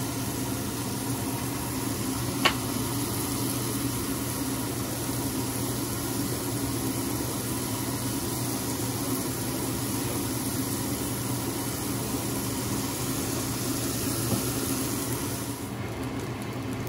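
Mushrooms sizzling on a hot metal pan, a steady hiss over a low hum, with one sharp click about two and a half seconds in.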